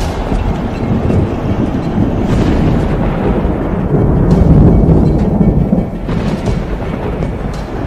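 Deep thunder-like rumbling, a dramatic sound effect that swells to its loudest about halfway through, with music underneath.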